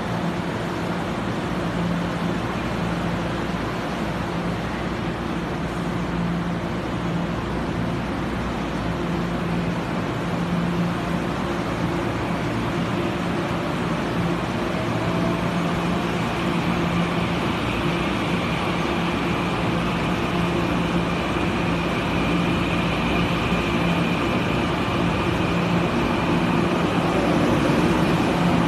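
Taiwan Railway Puyuma TEMU2000 electric tilting train pulling out of the platform. A steady low hum runs under it, and a traction-motor whine rises in pitch about halfway through while the train noise slowly grows louder.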